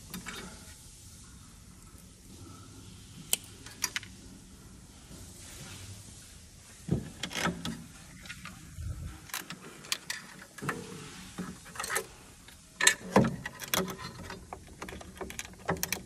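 Metal clicks, clinks and knocks of heavy battery cables and a small wrench being handled at lead-acid battery terminals, a few at first and busier from about seven seconds in.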